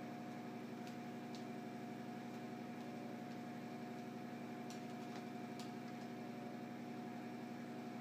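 A steady low hum runs throughout, with a few faint clicks scattered through it as the plastic electrical box and its wires are handled.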